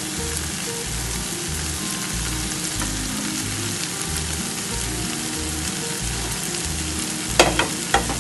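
Chopped onions, tomatoes and other vegetables sizzling in oil in a nonstick frying pan, a steady frying hiss. Near the end a spatula knocks sharply against the pan a couple of times as stirring begins.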